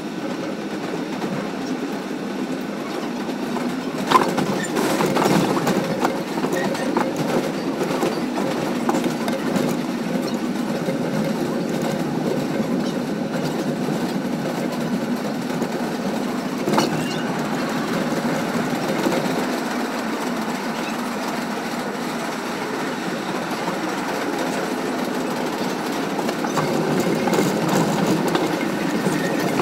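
R62A subway train running on elevated track, heard from the front cab: a steady rumble of wheels on rail, with sharp clacks about four seconds in and again near seventeen seconds.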